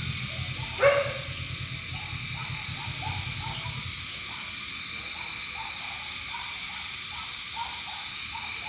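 A dog barks once, sharply, about a second in, over a steady hiss. After it comes a faint, rapid run of short calls, about four a second.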